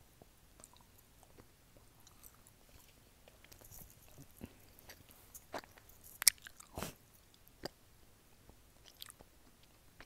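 Close-up mouth sounds of chewing a caramel-filled chocolate, picked up by an earphone microphone just below the mouth: soft wet smacks and scattered sharp clicks, the loudest a little past halfway.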